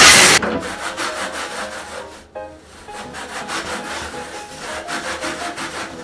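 A hose spraying water hisses and cuts off suddenly about half a second in. Then come quick repeated rubbing strokes of a scrubbing pad on a stainless-steel washing-machine drum.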